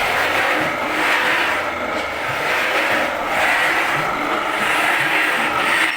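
Wood-shaving machine for sappanwood running, a steady rough mechanical noise that swells and eases roughly once a second.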